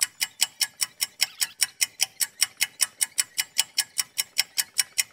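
Rapid, even ticking, about six sharp ticks a second, like a clock or timer sound effect.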